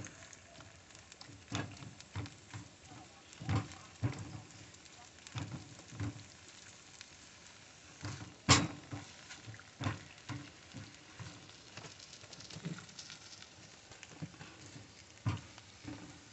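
Kitchen clatter: scattered light knocks and clicks of a utensil against a pan while stirring scrambled eggs, with one sharper click about eight and a half seconds in.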